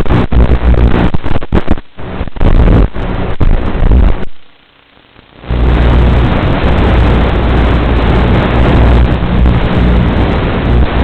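Loud, harsh rushing noise from a Blade QX Nano FPV micro quadcopter flight recording. It is choppy with brief dropouts at first, goes nearly quiet for about a second around four seconds in, then runs on steady.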